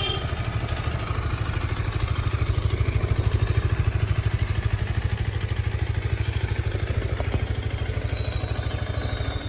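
Husqvarna Svartpilen 250's single-cylinder engine idling through its exhaust, a steady low note with an even, rapid pulse, which cuts off suddenly at the very end.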